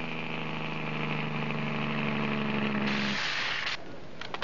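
A vehicle engine running steadily at an even pitch, cutting off abruptly about three seconds in, with a short sharp hiss just at the cut-off.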